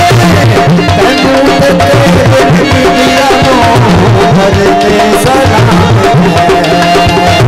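Loud Punjabi folk music with a steady, repeating hand-drum beat under held melody notes.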